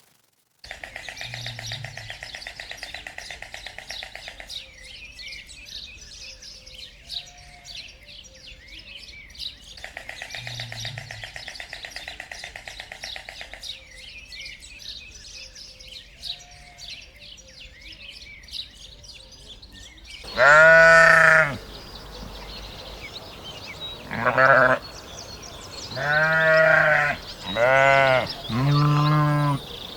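Five loud bleats in the last third, the first long and the rest shorter. They come over a background of rapid chirping and trilling that repeats about every nine seconds.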